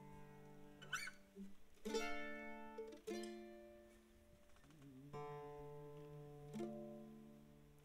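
Acoustic guitar and mandolin playing a slow lead-in: about five chords strummed one at a time, each left to ring and fade before singing begins.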